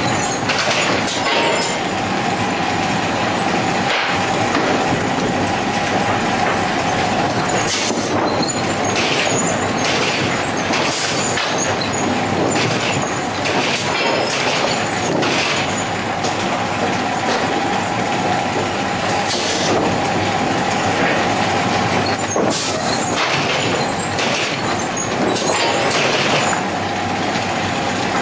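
Sawmill lumber conveyor running, its chains and lugs dragging rough-sawn boards along a metal deck: a loud, steady mechanical clatter broken by frequent clanks of boards and metal. A steady whine comes and goes over it.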